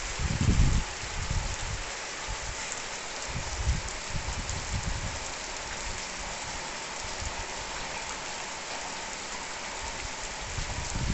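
Steady rain falling on a wet concrete yard and tile roofs, an even hiss, with a few low rumbles near the start.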